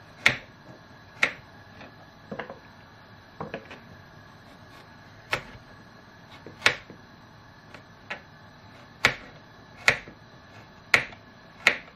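Kitchen knife cutting carrots into chunks on a plastic cutting board: about ten sharp knocks of the blade striking the board, spaced irregularly about a second apart.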